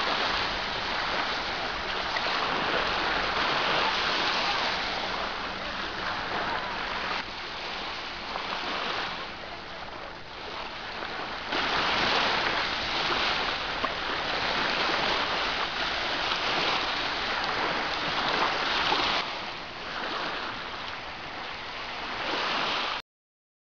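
Steady rushing of sea water with faint voices mixed in. The level shifts a few times and cuts off suddenly near the end.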